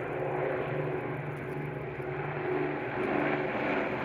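Avro Lancaster bomber flying past, its four Rolls-Royce Merlin piston engines droning steadily with a slow pulsing beat.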